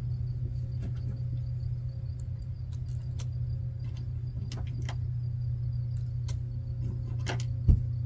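A steady low mechanical hum, with scattered light clicks and one dull thump near the end.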